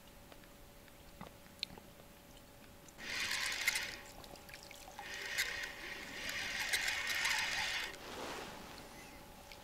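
Fishing reel being wound in two bursts, about a second and then about three seconds long, as a small silver bream is reeled in on a feeder line, with water splashing from the fish at the surface near the end.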